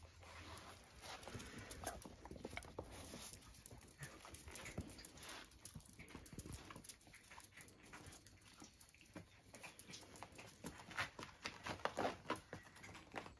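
Puppies play-fighting on a doormat and concrete step: a quiet scatter of scuffles and claw clicks, with small puppy yips. It gets busiest near the end.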